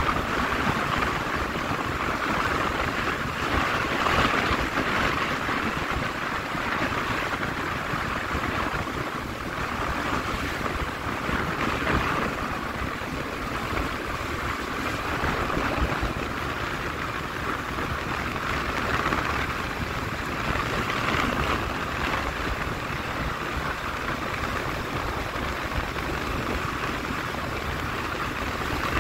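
Steady rush of wind and road noise from a vehicle travelling at speed along a highway, with a low rumble underneath.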